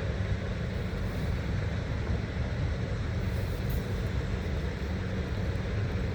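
Quarry plant machinery running with a steady low rumble that does not change.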